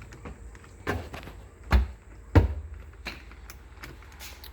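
Small clicks and three sharp knocks, about a second in and close together, the last two the loudest: a door knob set's metal parts bumping against the door as they are lined up on the mounting holes.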